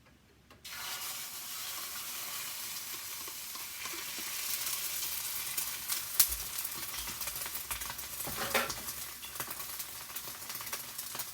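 An egg sizzling and frying in a hot pan as it is scrambled; the sizzle starts suddenly about half a second in and carries on steadily, with a spatula stirring and a few sharp clicks against the pan.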